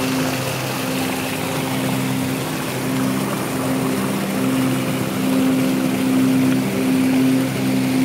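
Stream water rushing and splashing over boulders in a small cascade, with a slow background melody of held notes that change pitch every second or so.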